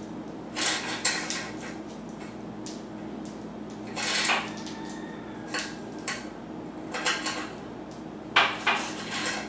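Bicycle chain clinking and rattling in short bursts as it is handled and wiped with a cloth, the loudest clatter near the end.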